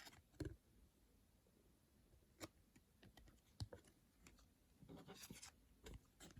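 Faint clicks and a brief rustle of trading cards being handled, flicked and slid against one another, with a few separate light clicks and a short rustle about five seconds in.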